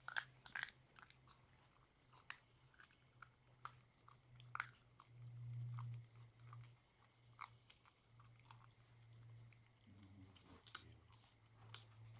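Puppies chewing raw chicken pieces on the bone, with a scatter of sharp cracks and crunches of bone and cartilage, the loudest about half a second in.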